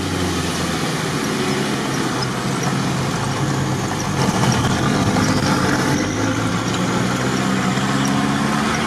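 Off-road vehicle's engine running steadily as it drives a wet, muddy forest track, heard from inside the cab, under a steady hiss of rain and wet tyres.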